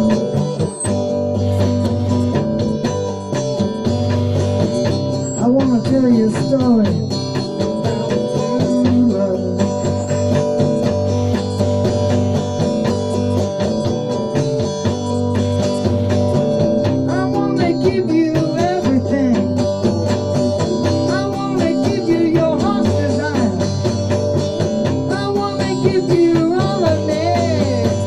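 Electric guitar playing a slow blues-style instrumental passage, with notes that bend up and down over a steady low accompaniment.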